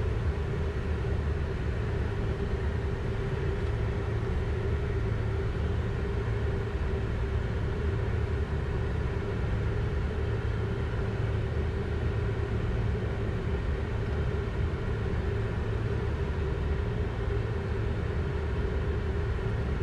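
Steady cockpit noise of a Learjet 60XR on final approach, gear and flaps down: a low rumble of airflow and its twin Pratt & Whitney PW305A turbofans, with a steady hum running through it.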